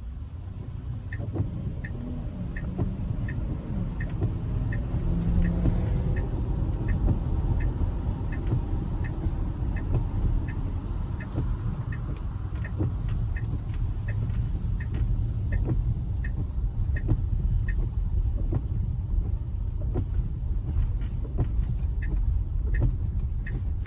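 Tyre and road noise inside a Tesla Model Y's cabin on wet pavement, with the turn signal ticking about twice a second.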